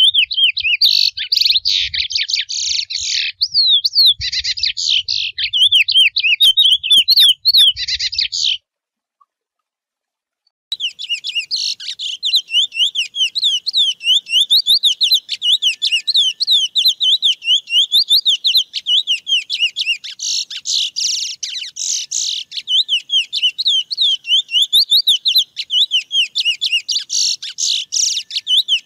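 Chestnut-bellied seed finch (curió) singing its wild 'mateiro' song, a fast run of high whistled, warbling notes. The song breaks off about eight seconds in and, after a two-second pause, starts again as a long unbroken stream of rapid notes.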